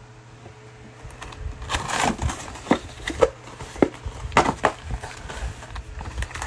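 A cardboard trading-card box being torn open by hand and the cellophane-wrapped packs inside handled: an irregular run of sharp rips, taps and crinkles starting about two seconds in, after a quiet start with a low steady hum.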